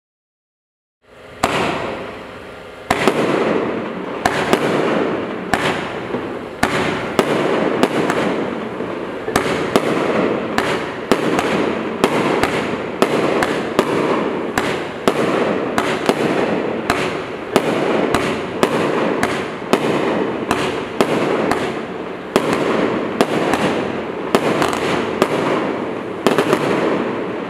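Profire Polaris 25-shot compound firework cake firing after about a second of silence: a quick string of sharp shots and bursts, about two a second, with continuous crackle filling the gaps.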